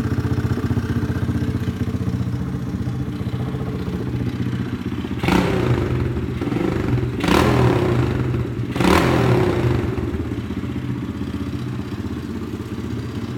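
Pit bike engine idling, blipped three times with the throttle, each rev about a second long and roughly two seconds apart, before settling back to idle.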